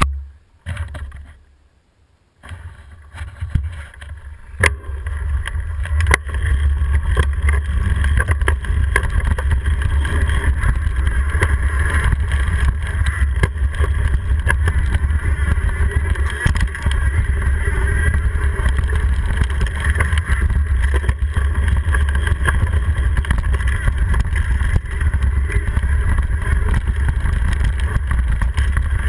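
Mountain bike riding fast over a dirt singletrack, heard from a GoPro mounted on the handlebars: a steady low wind rumble on the camera's microphone mixed with the bike rattling and clicking over the ground. It starts with a knock of the camera being handled and a couple of quieter seconds, then builds as the bike gets under way.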